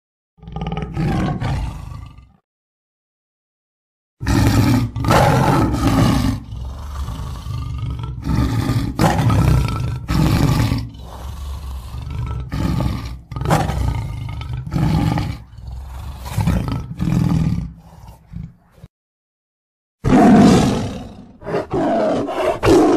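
Lion roaring: a short roar about half a second in, then a long run of deep roars and grunts, and another roar near the end, with abrupt cuts to dead silence between them.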